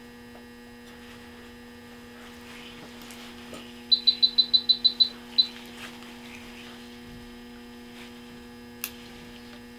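Steady electrical mains hum from operating-room equipment. About four seconds in, a rapid run of about ten short, high electronic beeps from the patient monitor, and a single click near the end.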